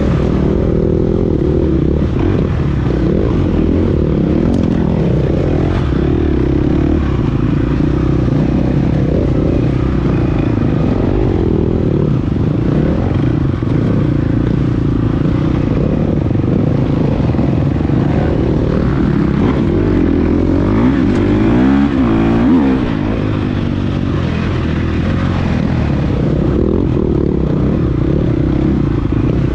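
KTM 350 XC-F dirt bike's single-cylinder four-stroke engine running hard off-road, its pitch rising and falling with the throttle. About three-quarters through it revs up sharply and drops back.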